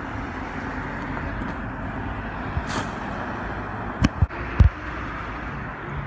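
BMX bike rolling over brick paving, a steady rumble, with three sharp knocks of the bike hitting the ground a little after four seconds in.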